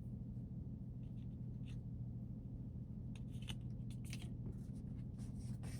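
Faint rustling, scraping and small clicks of packaging and accessories being handled, over a steady low hum.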